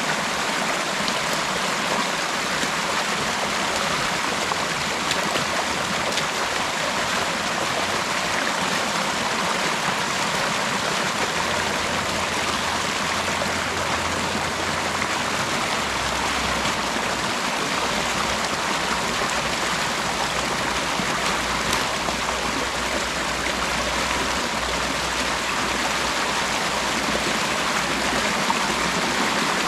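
Creek water rushing steadily through a breach torn in a beaver dam, an even, unbroken splashing flow.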